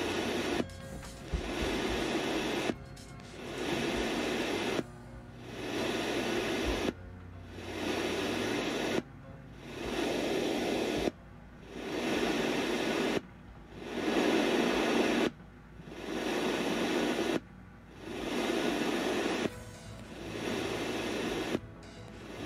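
A breadboard FM radio receiver built on an RDA5807M tuner chip, scanning the band while its seek button is held. About every two seconds the audio cuts out briefly, then a snippet of the next station fades back in.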